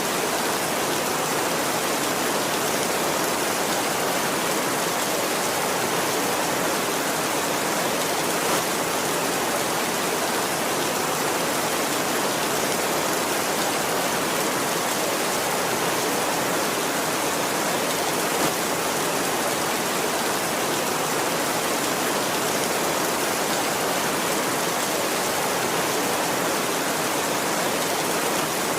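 Heavy rain drumming steadily on a tin roof, an even hiss of drops with no thunder.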